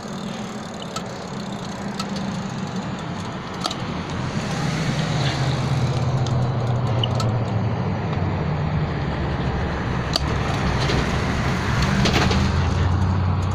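Road traffic noise: a motor vehicle's engine hum close by, getting louder about four seconds in, over a steady rush of road noise, with a few light clicks.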